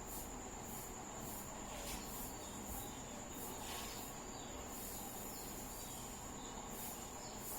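Faint insect chirping: a steady high-pitched whine with regular pulsing chirps above it.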